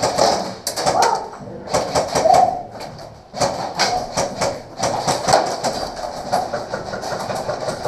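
Airsoft guns firing in rapid bursts: a dense run of sharp clicks and cracks, with faint shouting in between and a short lull about three seconds in.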